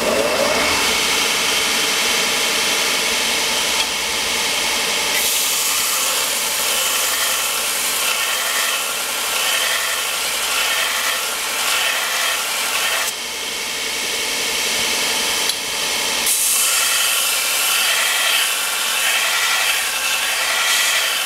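Belt sander running, its motor spinning up at the start, while a hand-forged steel flint striker is ground against the belt to clean up its face. From about five seconds in, the steel on the belt adds a harsh, high grinding hiss, which stops for about three seconds midway and then resumes.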